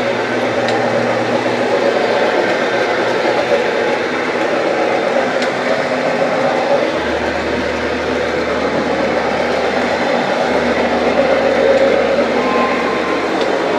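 Counter-rotating brush (CRB) carpet machine running steadily, its brushes turning against the carpet pile to lift dry soil and hair.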